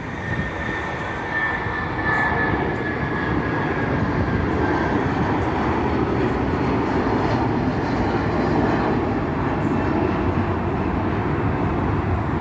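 Jet airliner taking off: a steady engine rumble, louder from about two seconds in, with a high engine whine that slowly falls in pitch over a few seconds.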